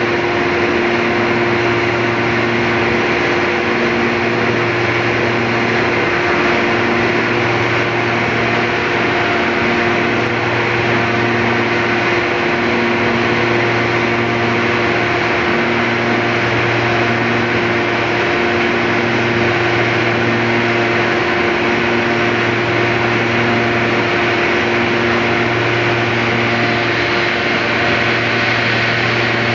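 Stevia drying machine running steadily: a loud, even mechanical noise with a constant hum and a low pulsing throb about every second and a half.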